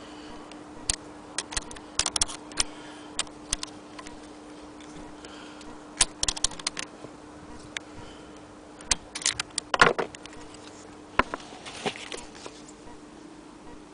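Irregular light clicks and ticks of metal parts as the 1870 Maxfield Agenoria hand sewing machine's mechanism is handled, in scattered clusters with the loudest burst about ten seconds in, over a steady low hum.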